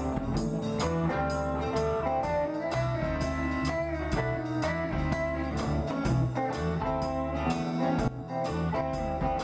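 Small blues band playing live: electric guitars over a drum kit keeping a steady beat.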